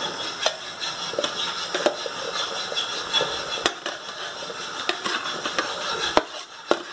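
Chopped vegetables tipped from a plastic bowl into an aluminium pressure cooker: irregular clatters and knocks as the pieces drop in and the bowl bumps the pot, over a steady background hiss.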